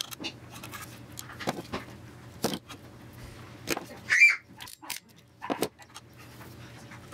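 Scattered clicks and knocks from wires and a hand crimping tool being handled while two wires are crimped into one connector. A short, high-pitched cry about four seconds in is the loudest sound.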